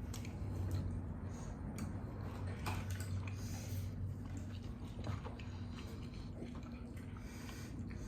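People chewing and biting into burgers and fries, with scattered small clicks and crunchy, wet mouth sounds over a steady low hum.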